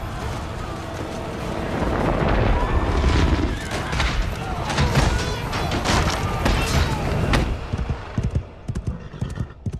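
Film battle sound mix: a medieval melee with shouting soldiers, horses, clashing weapons and booms under dramatic music, with dense sharp impacts from about three seconds in. Near the end it thins out to separate knocks like hoofbeats.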